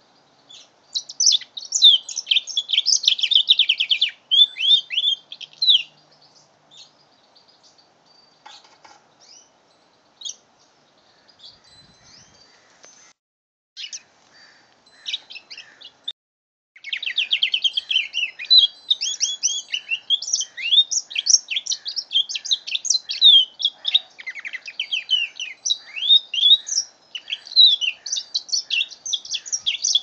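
A young mule canary (canary–finch hybrid), five months old, singing a fast twittering song of rapid chirps and trills. A dense burst comes first, then a stretch of scattered notes in the middle, then near-continuous song through the second half.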